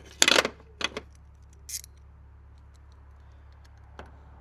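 Metallic clatter of tools and parts being handled: a loud rattling clack a moment in, then a click, a brief high scrape, and a fainter click near the end.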